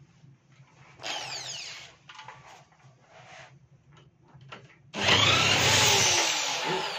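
Junak 806 scooter's electric starter cranking its 50cc two-stroke engine: a short whining crank about a second in, then a longer, much louder one from about five seconds in, with pitch sliding as it spins.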